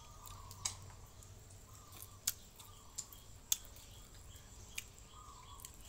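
About five small sharp clicks and crackles of fingers tearing apart a grilled fish on a plate, the loudest about three and a half seconds in, over a faint low hum.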